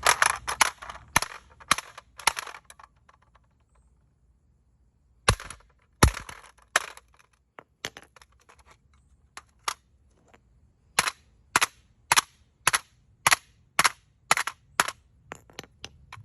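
Hammer blows on a plastic smoke alarm, sharp separate strikes: a quick run of several, a pause of a couple of seconds, a few more heavy blows, then a steady run of about two strikes a second near the end.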